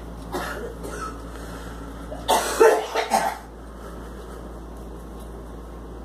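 A girl coughing in a fit: a short cough about a third of a second in, then a loud run of several coughs around the middle, the loudest part.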